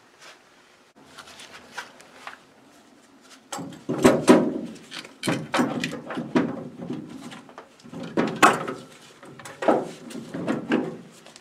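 Hand cleaning the side of a Ford Model A engine block: a run of irregular rubbing and scraping strokes that starts a few seconds in, with light clicks and knocks before it.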